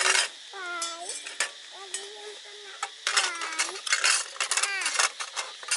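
A metal spoon clinking and scraping against a steel cooking pot, once right at the start and then in a quick run of clinks through the second half. A high, wavering voice-like call sounds on and off alongside.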